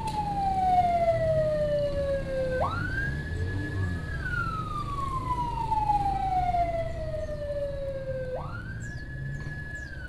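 Emergency wail siren on an ambulance escort: the pitch climbs quickly, holds high for about a second and a half, then falls slowly over about four seconds, twice, over the low rumble of a motorbike on the road.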